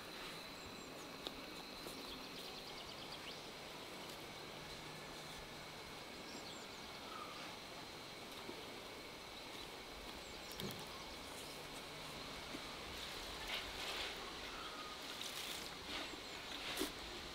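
Faint outdoor background noise with a thin, steady high-pitched tone, a few short chirps, and a scatter of light clicks and taps near the end.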